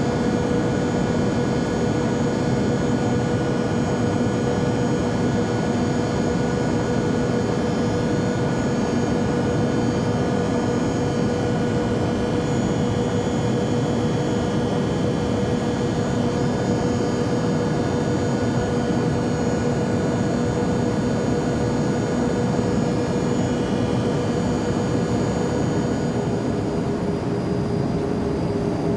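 Steady drone of an airplane in flight: an even rushing noise with several constant hums over it. Near the end the main hum drops slightly in pitch.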